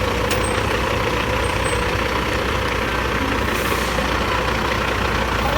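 Bulldozer's diesel engine running steadily, a continuous low drone with no change in pace.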